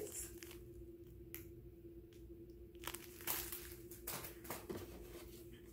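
Scattered crinkling and rustling of product packaging being handled in a shipping box, starting about halfway through, over a faint steady hum.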